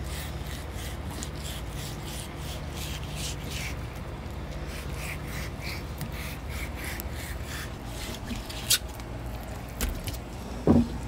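A flexible fillet knife scraping between a kingfish fillet's thin skin and the cutting board in repeated short strokes, as the skin is cut away, over a low steady hum. A thump comes near the end.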